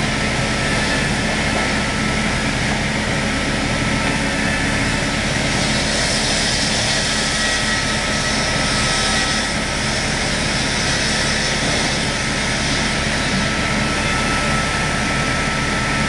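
Reciprocating single-side sawing machine running, its saw cutting lengthwise through a squared log; a loud, steady machine noise with a constant high tone.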